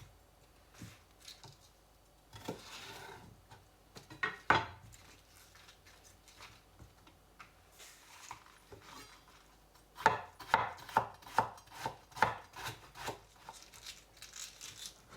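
Kitchen knife cutting red cabbage into fine strips on a chopping board: scattered knocks and some rustling of the leaves, then a quick run of strokes, about three a second, starting about ten seconds in.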